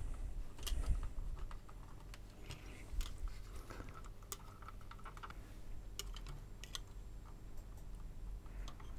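Light, irregular clicks and taps of a cassette deck mechanism's plastic and metal parts being handled and turned over by hand, a handful of sharper clicks scattered through.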